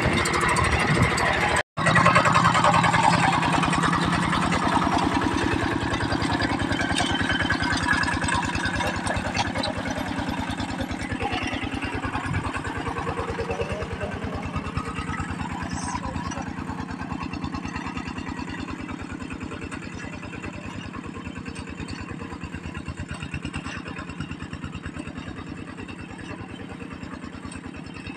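Kubota diesel tractor engine running steadily under work, growing gradually fainter. It cuts out for a split second about two seconds in.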